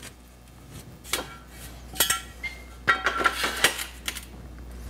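Square steel tubing being set into a welding jig on a steel table top: scattered metal clinks and knocks, most of them between about two and four seconds in, some ringing briefly.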